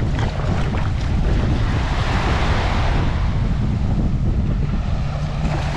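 Surf washing up the beach, one wave's hiss swelling and fading over a few seconds, with wind buffeting the microphone in a steady low rumble.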